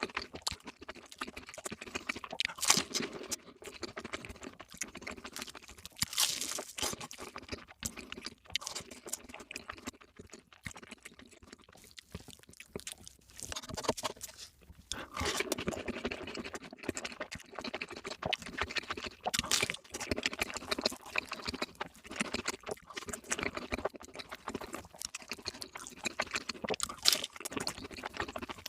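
Close-miked chewing and crunching of crispy fried food, with many sharp, irregular crunches and wet mouth sounds; quieter for a few seconds in the middle, then busier again.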